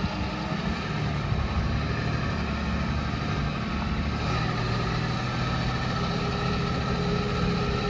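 Heavy diesel engine of earthmoving equipment running steadily.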